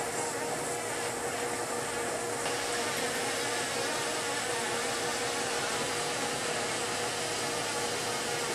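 Glassworking lathe torch flames giving a steady rushing hiss, with a faint steady hum under it.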